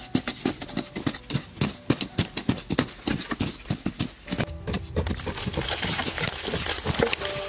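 Hand digging tools, one with a flat metal blade, striking and chopping into dry, hard earth in quick, irregular strokes, several a second. In the last couple of seconds the strokes thin out into the scraping and rustle of loose soil being scooped and let fall.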